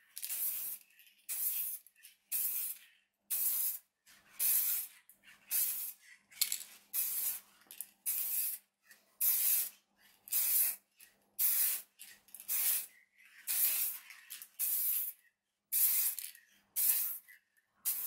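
Aerosol can of gloss white spray paint hissing in short bursts, about one a second, the nozzle pressed and released over and over to lay down a light first coat.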